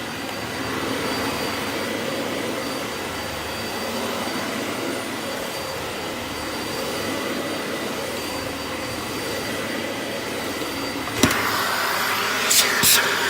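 Dyson Light Ball Animal upright vacuum running on its middle setting, its brush bar working the carpet: a steady rush of noise with a thin high whine. A sharp click comes about eleven seconds in, and two short knocks come near the end.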